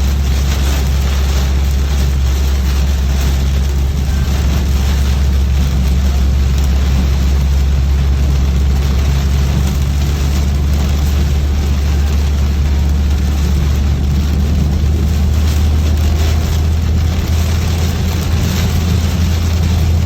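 Steady drone of a car being driven in heavy rain, heard from inside the cabin: a low engine and road hum under an even hiss of rain.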